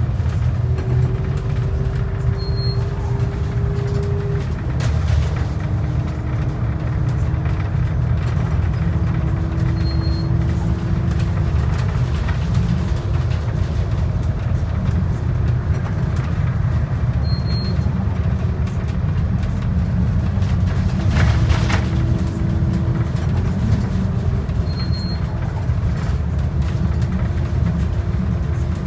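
Bus ride noise from on board a moving bus: steady engine and road rumble with a whine that steps between pitches. A short faint beep repeats about every seven seconds, and a brief rattle comes about three-quarters of the way through.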